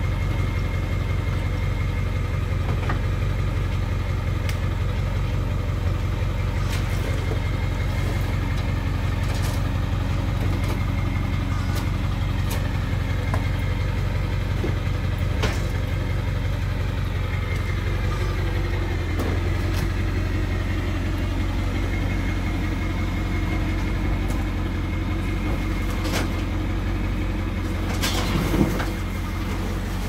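Pickup truck engine idling steadily, with occasional knocks and clunks as heavy cardboard-boxed HVAC units are handled on its lift gate.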